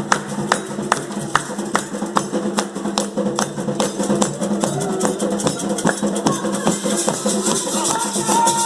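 Candomblé ceremonial music: percussion with a sharp stroke about two to three times a second over steady sustained voices, growing busier and a little louder near the end.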